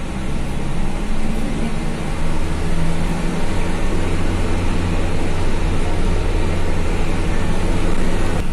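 Medium coach's diesel engine running under way, its low hum growing louder about three seconds in, with steady road and tyre noise, heard from inside the passenger cabin.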